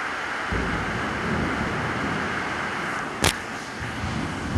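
Steady rain falling on trees and a corrugated metal roof, with a low rumble joining about half a second in. One sharp click about three seconds in.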